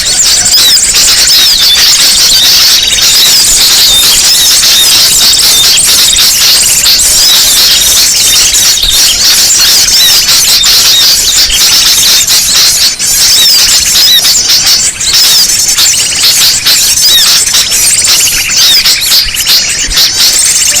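Loud, dense chorus of many small birds chirping and twittering at once without pause: a bird-lure recording of agitated small birds, played to draw other small birds in.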